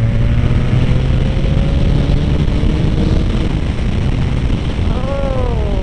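Honda VF1000R's V4 engine, fitted with VF1000F carburettors on 145 main jets, running under load while the motorcycle is ridden at road speed, with wind rush across the microphone. The engine's pitch climbs slowly over the first couple of seconds and then holds steady. About five seconds in there is a short rising-and-falling sound.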